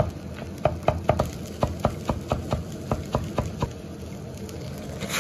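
Chinese cleaver slicing rolled cabbage into fine shreds on a thick wooden chopping board: a steady run of knocks, about four a second, which stops a little before the end.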